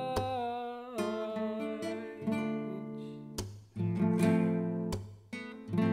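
Acoustic guitar chords strummed about once a second as song accompaniment, with a held sung note sliding down and ending about a second in.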